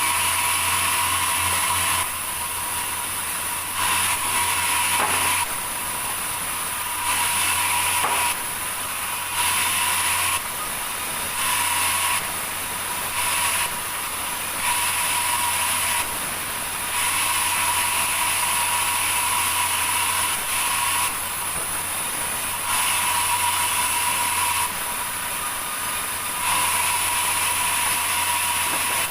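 Sawmill saw machinery running with a steady whine and low hum, jumping abruptly between louder and quieter every second or two.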